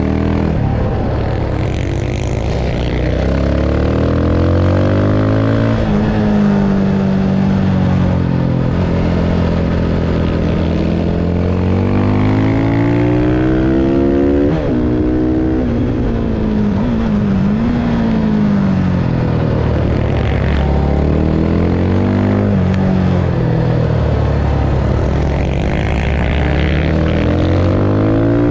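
Supermoto motorcycle engine at full track pace, its pitch climbing hard under acceleration, stepping through gear changes and falling away when the throttle is closed, several times over.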